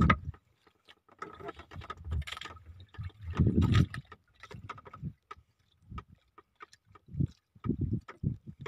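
Sounds of a small fishing boat at sea: irregular bursts of low rumble from water and wind, with scattered sharp clicks.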